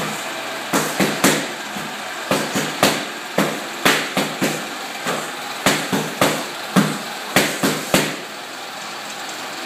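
Boxing gloves striking focus mitts in quick combinations: about twenty sharp smacks in runs of two to four, with short pauses between runs.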